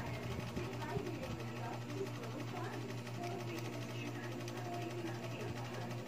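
A steady low hum, like a small motor running, with a few faint clicks in the first second or so.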